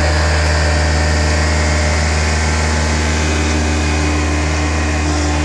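PowerBoss Armadillo ride-on industrial sweeper running steadily, its engine giving a constant low hum under a broad whirring noise.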